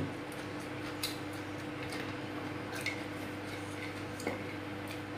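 Quiet eating sounds: fingers picking the last grains of rice and bits of food off a plastic plate, with a few soft clicks, over a steady faint hum.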